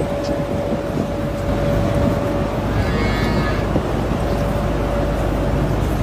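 Steady low rumble with a constant hum, and a short call that rises and falls about three seconds in.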